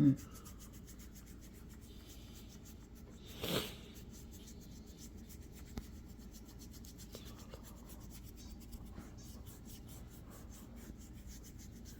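Faint, steady rubbing of hands kneading a person's shoulder during a massage, with one brief louder rub about three and a half seconds in.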